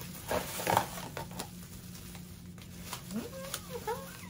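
Plastic packaging being handled and opened, with a cluster of sharp clicks and crinkles in the first second and scattered clicks after. A short wavering, gliding high sound comes near the end.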